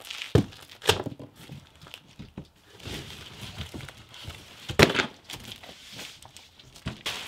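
Unpacking a boxed minibike: several sharp knocks and thuds of parts and packaging being handled, the loudest about two-thirds of the way through, with crinkling and scraping of packaging in between.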